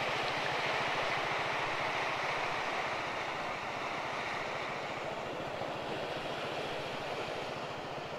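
Suzuki DR 200 Djebel's single-cylinder engine running at a steady pace while riding, under heavy wind rush over the microphone; the overall level eases slightly about halfway through.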